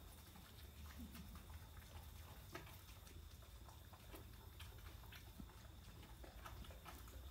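Near silence with faint, scattered small clicks and rustles.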